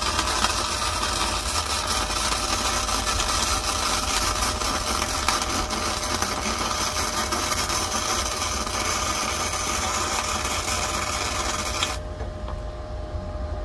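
Flux-core wire-feed welding arc from a hzxvogen multi-process welder, a steady crackling sizzle that cuts off abruptly near the end as the bead is stopped. The wire feed speed has just been turned down a little because the weld was running a little hot.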